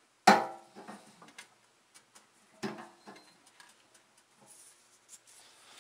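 Pliers clicking and clinking against a generator's brass fuel petcock as they try to turn the stub of its broken shut-off handle to stop a gas leak. One sharp, ringing clink comes about a third of a second in, a second near the middle, with small ticks between.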